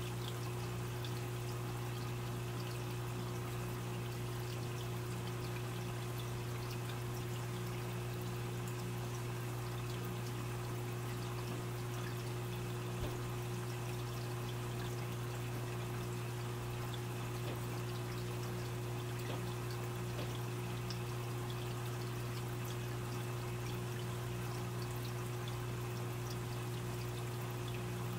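Aquarium filter running: water steadily trickling and splashing into the tank, over a constant low hum from the pump.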